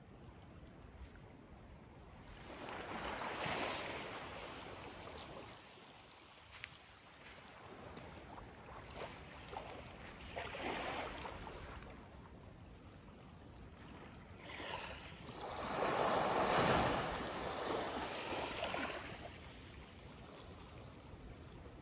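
Small waves washing up onto a sandy beach from calm water, three washes swelling and fading, the third, about two-thirds of the way in, the loudest and longest.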